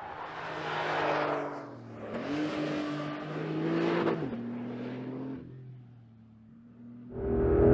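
Porsche 911 Carrera GTS's 3.6-litre flat-six exhaust, swelling twice as the car accelerates, with the pitch rising through the second pull. It fades away, then returns much louder and close at hand, starting suddenly near the end.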